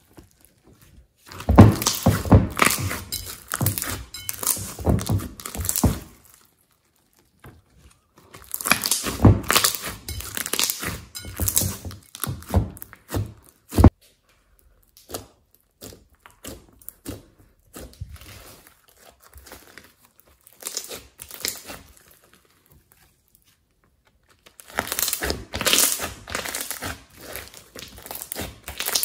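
Sticky bead-filled slime squeezed, pressed and pulled by hand, giving dense crackling and popping in three long bursts, with one sharp pop about fourteen seconds in and quieter scattered crackles between.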